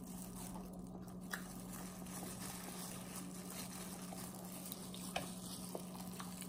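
Faint eating sounds: chewing, with a few small clicks as shrimp shells are peeled by plastic-gloved hands, over a steady low hum.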